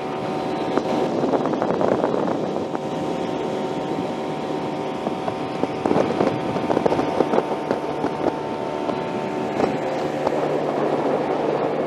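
Motorboat engine running steadily under way, with wind buffeting the microphone.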